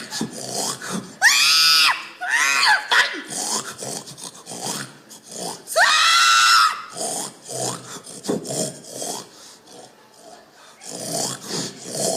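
A woman imitating a pig with her voice: two loud, high squeals that rise and fall in pitch, about a second and five seconds in, with shorter grunts and snorts between them and near the end.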